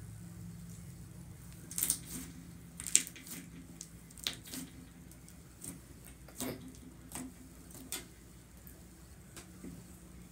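Green slime being squished, pressed and poked by hand, giving a string of sharp wet pops and clicks about once a second over a faint steady hum.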